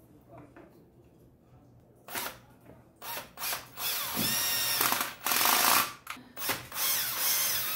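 Cordless drill driving into wood in a series of trigger bursts, starting about two seconds in: short blips, then longer runs whose motor pitch rises and falls as it speeds up and slows. The first two seconds hold only faint knocks of handling.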